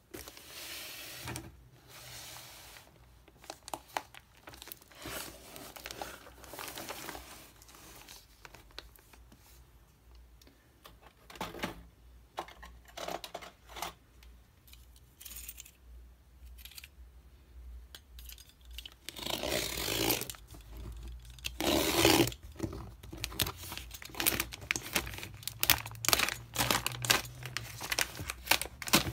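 Black plastic wrapping and packing tape on a cardboard parcel being crinkled and torn open by hand, in irregular rustles and crackles. There are two longer, louder tears about two-thirds of the way through, then dense crackling.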